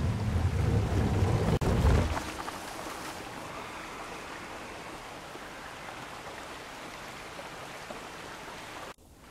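A mountain bike rolling across the plank deck of a wooden footbridge, a low rumble that peaks and fades about two seconds in. Under it and after it, the steady rush of a creek.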